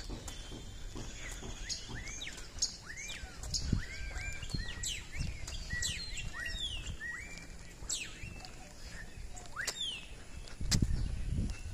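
Several birds chirping and calling, with many short chirps that sweep up and down in pitch. A few low thumps come through, loudest near the end.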